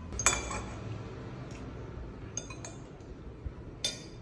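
Kitchen utensils clinking against dishware: one sharp clink just after the start, a few lighter clinks, and another sharp one near the end.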